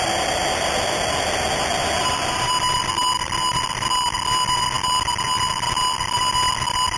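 A loud, steady hiss with a high steady ringing tone over it. The ringing grows clearer about two and a half seconds in.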